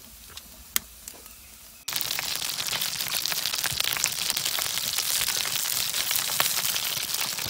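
Fish frying in hot oil in a pan: a dense sizzle full of crackling spatters, starting suddenly about two seconds in. Before that come a few sharp pops from a wood fire.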